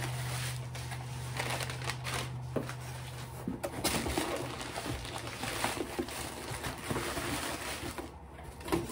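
Paper packaging rustling and crinkling as items are handled and unwrapped from a shipping box, with scattered small crackles.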